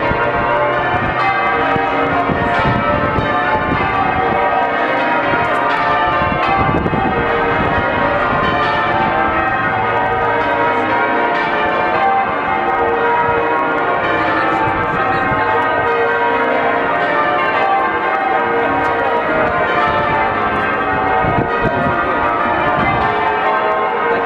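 The bells of St Paul's Cathedral ringing a full peal: many bells sounding in quick succession, loud and unbroken.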